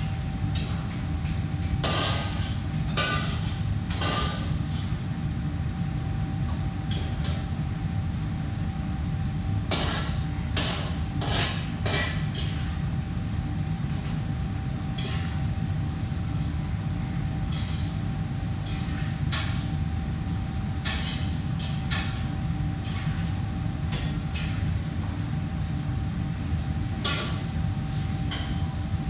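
Commercial kitchen sound: a steady low machine hum with a faint steady whine above it, broken by scattered clatters and knocks of metal pots, bowls and utensils. The knocks bunch together about two to four seconds in, around ten to twelve seconds in, and again around twenty seconds in.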